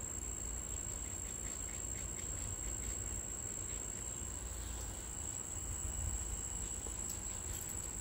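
Crickets singing, a steady high-pitched trill that goes on without a break, over a low background rumble.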